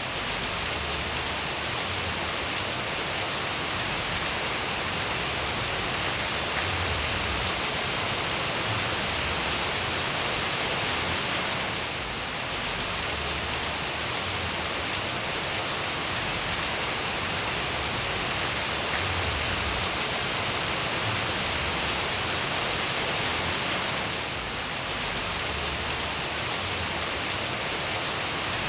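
Steady rain falling, an even dense hiss of drops, with a brief dip in level about every twelve seconds.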